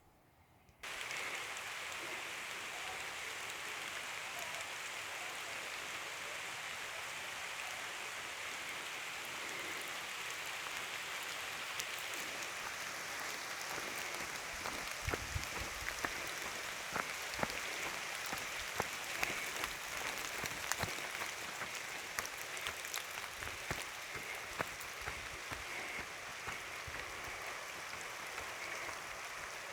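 Steady rain falling, with the patter of drops on nearby surfaces; it starts abruptly about a second in. From about halfway on, individual drops and heavier splats hit more distinctly.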